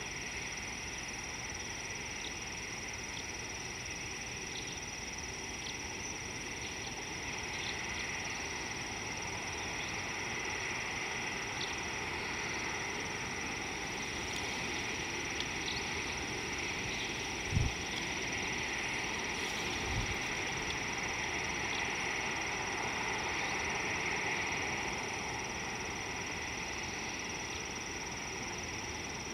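Steady outdoor background hiss with a constant high drone, broken by two short low thumps about two and a half seconds apart.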